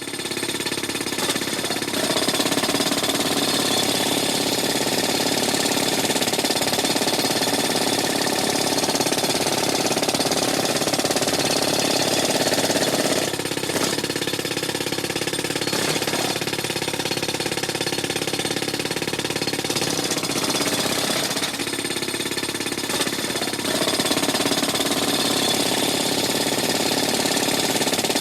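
Pneumatic jackhammer hammering continuously in rapid, even blows. Its tone changes briefly about halfway through and again a few seconds later, then settles back.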